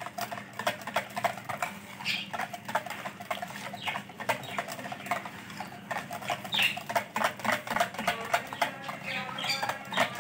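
Wire balloon whisk beating thick, wet yogurt in a bowl: a rapid, uneven run of clicks and slaps as the wires strike the bowl and churn the yogurt.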